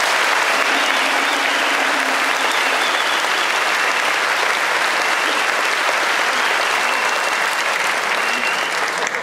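Audience applauding with sustained clapping, which tails off near the end.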